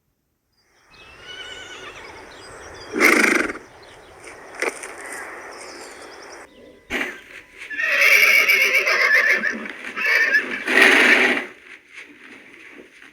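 Horse neighing: a fainter whinny about a second in, then several louder calls with a quavering pitch, including two short loud blasts near three and eleven seconds in.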